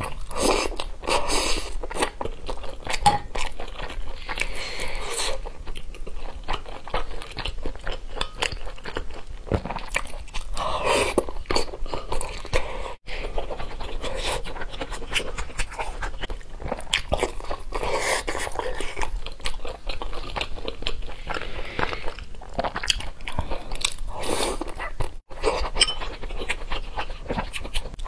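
Close-miked wet chewing and biting of braised meat chunks in sauce, with dense, irregular smacking and squelching mouth sounds. Twice the sound cuts out for an instant.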